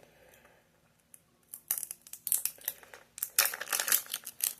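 Plastic packaging crinkling and crackling as it is handled and opened, in irregular bursts through the second half.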